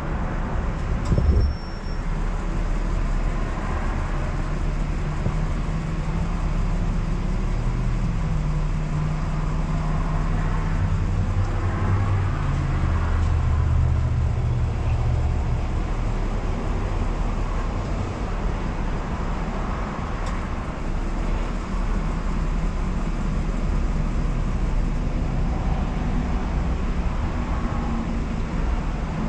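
Traffic noise with a steady low engine hum, which grows stronger and shifts in pitch for several seconds in the middle. There is a single knock about a second in.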